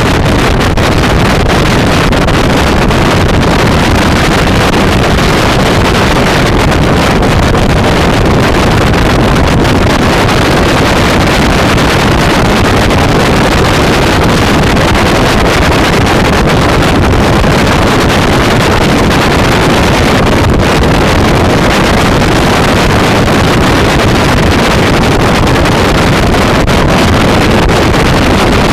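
Loud, steady wind noise buffeting the microphone of a scooter rider at riding speed, a dense rushing sound that covers everything else.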